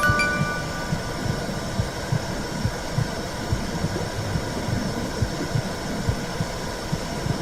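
Womb sound: a heartbeat's repeated low thumps over a steady whooshing rush, as heard inside the womb. A soft chime rings out and fades at the start.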